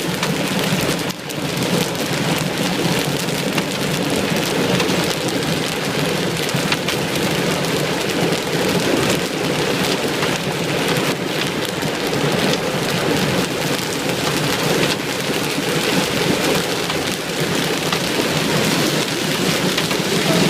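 Large hail pelting down hard: a dense, steady clatter of countless hailstones striking the ground and nearby surfaces, with a brief lull about a second in.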